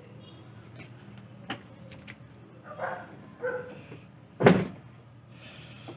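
A French bulldog gives two short whines about three seconds in, over a faint steady hum. A loud single thump comes about four and a half seconds in.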